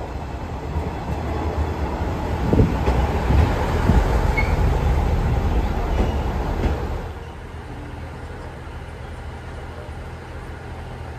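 JR East KiHa 100 diesel railcar running into the platform and past at close range: engine and wheel-on-rail noise with a few clunks, loudest in the middle. About seven seconds in it stops and settles to a steady low idle hum.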